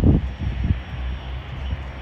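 Small single-engine airplane on landing approach: its engine gives a steady low drone, with a few low rumbles near the start.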